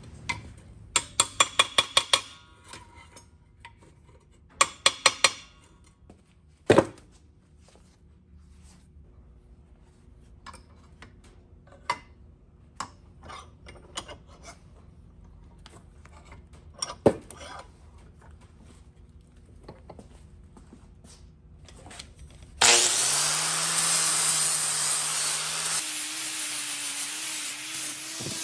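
Steel clicking and knocking as two steel plates are clamped together in a bench vise: two quick runs of rapid clicks in the first few seconds, a sharp knock at about seven seconds, then scattered light taps. About 23 seconds in, a small angle grinder starts and grinds the edges of the clamped plates to make them the same size, a loud steady grinding that carries on to the end.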